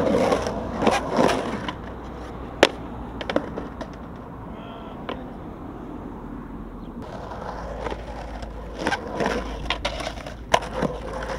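Skateboard on concrete: sharp clacks of the board striking the ground, then wheels rolling along a sloped concrete ditch wall, with more clacks near the end.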